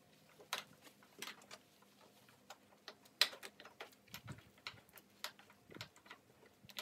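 Faint, irregular ticking of water drops falling from the freshly wetted stainless-steel barbecue, roughly one or two a second, with the loudest tick about three seconds in.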